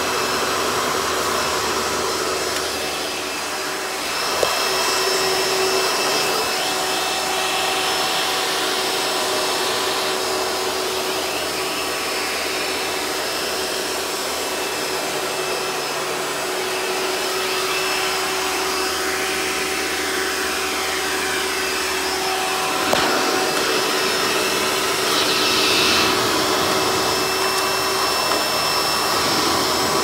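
Hoover Legacy WidePath upright vacuum with a direct-air motor, running steadily with its hose pulled out for tool use: a steady motor hum with a thin whine over it. Two short sharp knocks come from the hose or tool, a few seconds in and again past the two-thirds mark.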